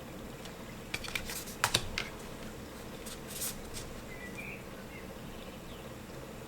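Tarot cards being handled during a flip through: a cluster of light clicks and taps about a second in, then a few soft card scrapes around three seconds in, over a faint steady room hum.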